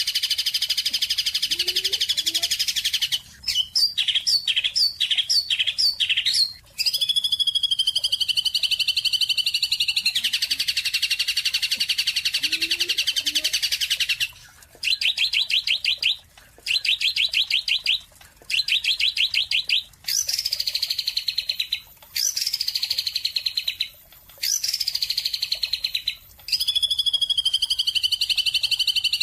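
Songbird chirping in loud, rapid trills, some held for about three seconds. Between them come a quick run of short notes and then a series of shorter trills about two seconds apart.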